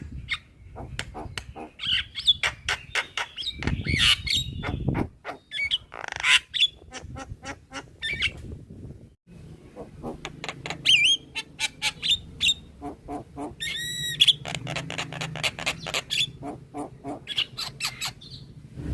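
Javan myna (jalak kebo) singing in full, busy voice: fast runs of sharp clicks and chatter mixed with short whistled and sliding notes, breaking off briefly about halfway through.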